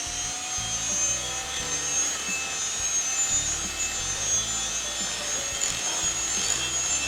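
Electric mixer beating cake batter in a bowl, its motor running steadily with a high whine.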